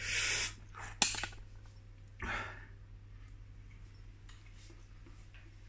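A man eating: a short rustle at the start, a sharp click of a metal fork about a second in, a breath about two seconds in, then faint chewing sounds over a steady low hum.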